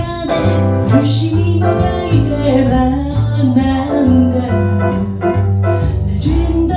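Music: piano and bass playing, with a female voice singing the melody over them.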